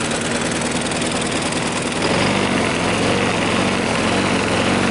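Craftsman lawnmower engine running steadily on gasoline vapor drawn from a jug through its air intake, rather than on liquid fuel. About two seconds in its note shifts and it grows louder as the air valve on the intake is adjusted.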